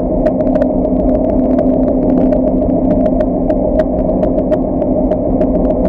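Steady hum of a 1/32 scale RC tugboat's 540-size electric motor and propeller drive, heard from a camera aboard the model's deck, with frequent small ticks scattered over it, several a second.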